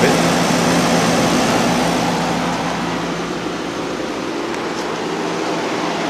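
Home-built heat pump water heater running shortly after start-up: its compressor gives a steady low hum under the steady rush of air from its radiator fan, which is driven by a 120-volt air-conditioner fan motor.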